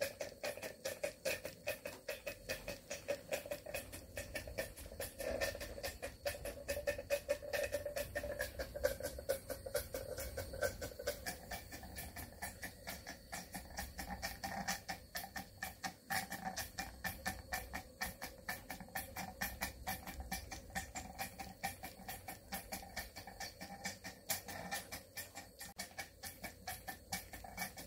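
Cotswold Heritage Cirrus model steam beam engine running steadily under steam, its exhaust beats a quick, even run of soft chuffs.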